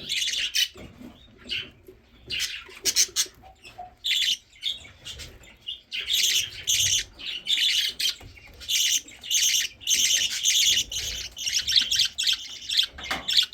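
Baby budgerigars begging for food: rapid, high-pitched, raspy chirping calls in repeated bouts, with short lulls about a second in and around the middle.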